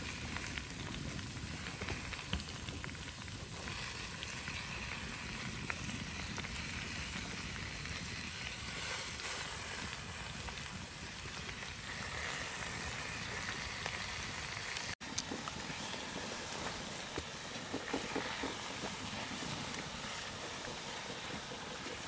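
Food sizzling and frying in hot oil in a cooking pot, a steady hiss with occasional light crackles. About fifteen seconds in, the sound cuts abruptly to a different steady outdoor background with scattered clicks.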